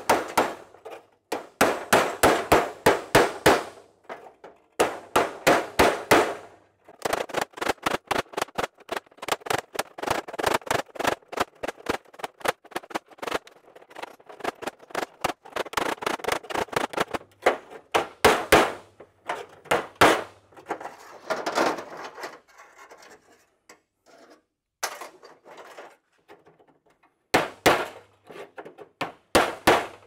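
Hammer rapidly tapping a chisel, metal on metal, to drive rusted-away remnants out of the folded-over lip of a 1928 Ford Model A steel trunk lid skin. The strikes come several a second in runs of a few seconds, with short pauses between runs.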